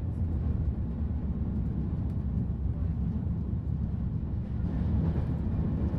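Steady low rumble of a passenger train rolling along the track, heard from inside the coach.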